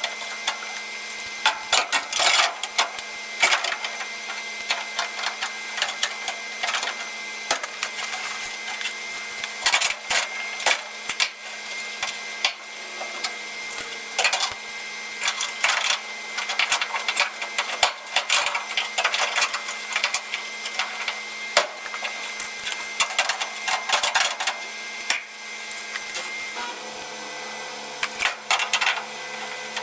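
Sheet-metal inner rocker panel being fitted into the car body: many irregular metallic clanks, taps and knocks over a steady hum.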